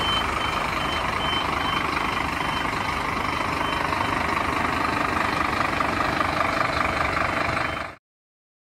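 Scania P310 tipper's diesel engine running steadily, with a warning beeper pulsing about three times a second that fades after a few seconds. The sound cuts off suddenly about eight seconds in.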